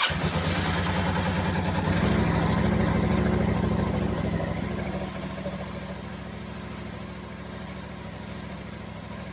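2021 Yamaha R7's 689 cc parallel-twin engine running just after catching on its first start in a couple of months. It runs at a fast idle for the first few seconds, then settles to a steadier, quieter idle.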